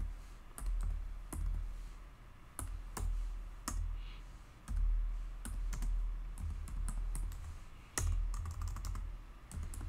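Computer keyboard being typed on in irregular runs of separate keystroke clicks, over a low rumble.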